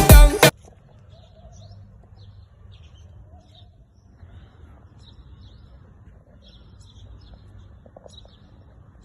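A dancehall-style song cuts off about half a second in, leaving faint small birds chirping: scattered short, high chirps over a low background hum.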